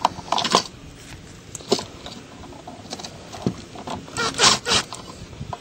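Short scrapes and clicks of hands handling a plastic outlet at its wall box, with a hand or arm rubbing close to the microphone. The loudest scraping comes about four and a half seconds in.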